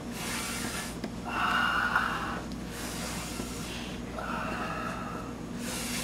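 A man breathing heavily and gasping in pain after a blow to the head, in slow alternating breaths in and out, about three full breaths.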